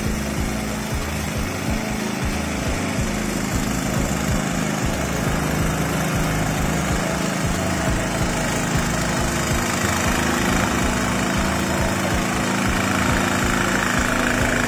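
Small petrol engine of a motorised grass cutter running steadily under load as it cuts grass.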